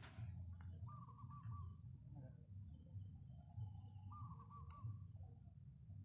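Zebra dove (perkutut) cooing faintly twice, each a short run of quick rolling notes, about three seconds apart. Steady high insect trilling runs behind it.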